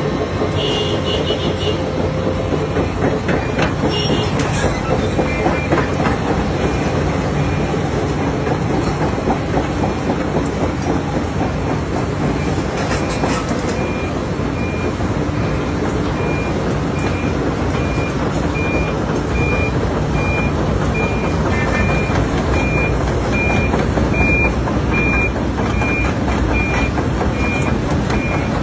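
Heavy mining machinery engines running with a steady rumble, and a reversing alarm beeping at a regular pace from about five seconds in.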